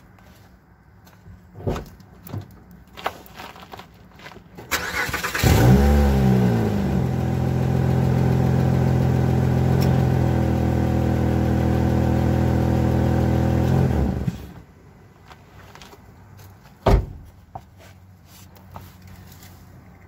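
Car engine cranked and started about five seconds in. It flares on catching, then settles into a steady idle through a resonator-deleted exhaust with a small leak in the pipe ahead of the muffler, giving the little rustly sound of a classic exhaust leak. It is shut off after about nine seconds, and a single sharp knock follows near the end.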